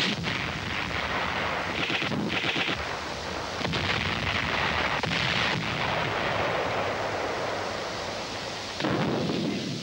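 Battle noise of gunfire and artillery explosions, sharp reports coming one on another, with a quick string of shots about two seconds in.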